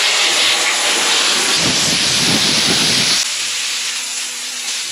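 Compressed air hissing in a long continuous blast from a tyre inflator, easing off a little about three seconds in.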